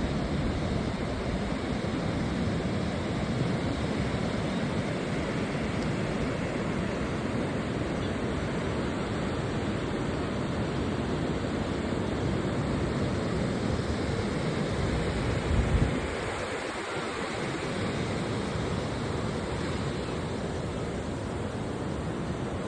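Steady wash of ocean surf on a beach, an even hiss with no pauses. A brief low rumble swells and drops off about fifteen seconds in.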